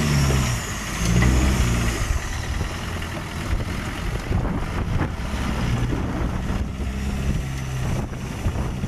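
Off-road 4x4 engine revving up and down as it works over the trial course. It is loudest in the first two seconds, then runs on more steadily.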